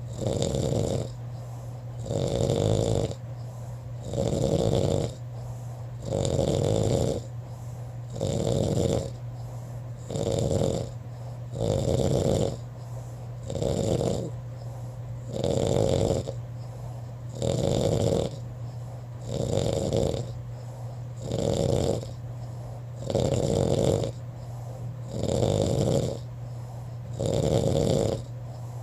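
A person snoring in a steady, regular rhythm, one loud snore about every two seconds with a softer breath between, over a steady low hum.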